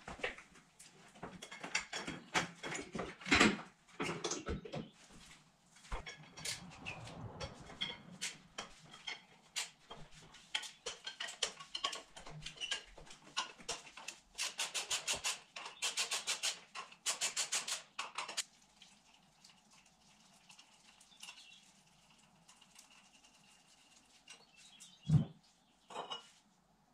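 The old drive chain of a Kawasaki KLE 500 being worked off the rear sprocket by hand: metal links clinking and rattling, with a fast, even run of clicks for a few seconds around the middle as the chain is fed off the sprocket. A single dull thump comes near the end.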